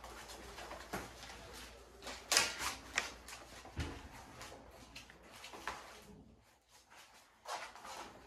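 Scattered knocks, scrapes and rustles of puppies being handled on an exam table, with a louder clatter about two seconds in and a dull thump near four seconds.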